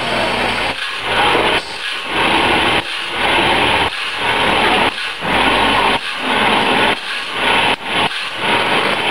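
Automatic bandsaw blade sharpener's abrasive grinding wheel grinding the blade's teeth one at a time: a gritty grinding burst about once a second with a short break between each, as the blade is stepped on tooth by tooth.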